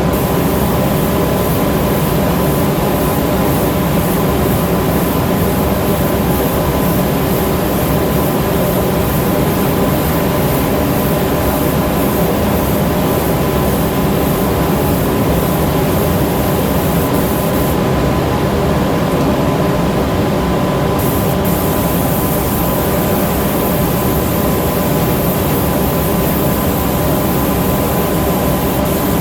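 A machine running steadily: a loud, even noise with a low hum and a constant thin whine, unchanged throughout.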